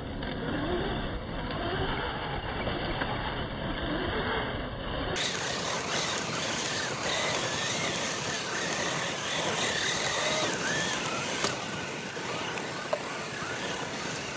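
Two Losi LMT RC mega trucks driven hard on gravel: their electric motors whine up and down with the throttle over the crunch and spray of tires spinning and sliding on loose stones.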